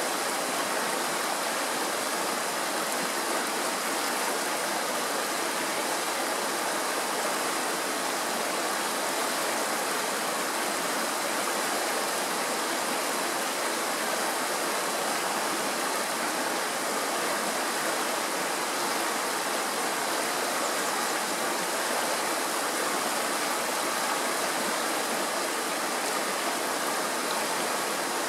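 Mountain stream running fast over rocks in shallow riffles, a steady rushing and splashing of water with no change in level.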